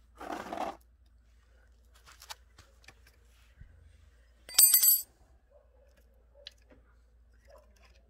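Metal parts of a rusty chainsaw being handled: a short scraping rush near the start, then a loud metallic jingle with a high ringing a little past halfway, and scattered small clicks in between.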